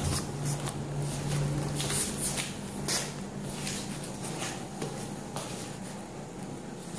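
Scattered scuffs, rustles and a few light knocks around a basketball and dog on a tile floor, over a low steady hum that fades out about two seconds in.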